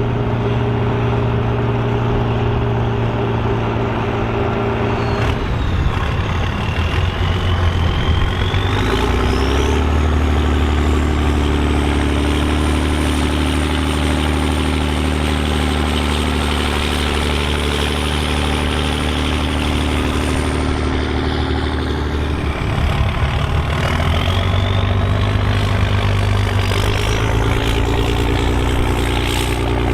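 Volvo BM 814 tractor's diesel engine running steadily under load. The engine note shifts twice, about six to nine seconds in and again around twenty-three seconds, each time with a thin high whine rising in pitch and then holding.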